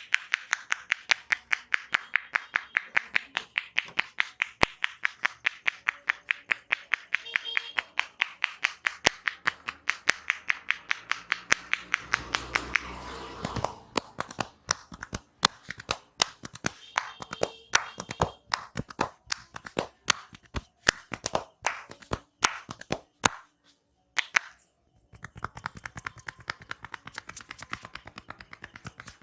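Percussive massage tapping on a person's head and body, in a fast even rhythm of about four to five sharp strikes a second for the first half, then slower, uneven taps and slaps.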